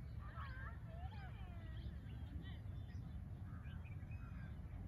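Several small birds chirping and whistling in short, overlapping calls over a steady low rumble.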